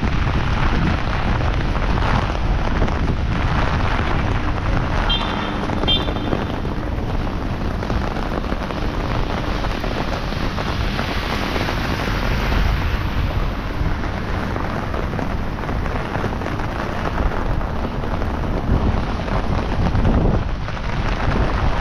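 Heavy rain pouring down steadily, with wind rumbling on the microphone underneath.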